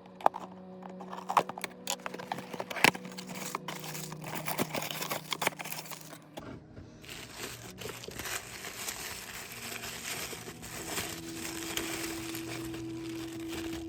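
A toy blind box being opened by hand: cardboard and plastic packaging crinkling and tearing. There are sharp taps and rustles for about the first six seconds, then steadier, continuous crinkling.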